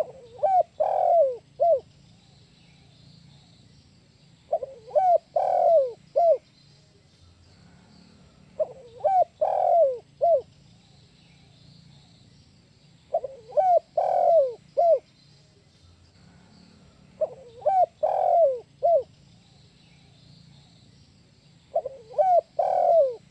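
Spotted dove (tekukur) cooing in the 'kuk 1' style: the same phrase repeats about every four seconds, six times, with a couple of short coos, a long loud falling coo, and a single short closing 'kuk'.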